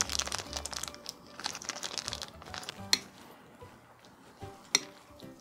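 Plastic sauce sachet crinkling as it is squeezed out by hand for a couple of seconds, then two sharp clicks of metal chopsticks against a ceramic plate as the sauce is stirred into the noodles. Soft background music underneath.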